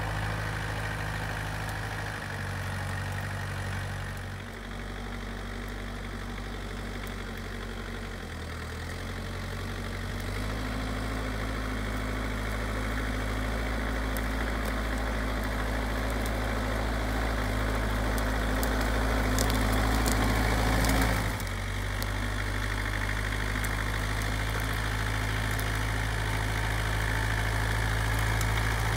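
Goldoni Ronin 50 compact tractor's diesel engine running under load as it tows a log-laden forestry trailer. The engine speed shifts several times in the first ten seconds, then holds steady. About three-quarters of the way through it rises briefly and drops off suddenly.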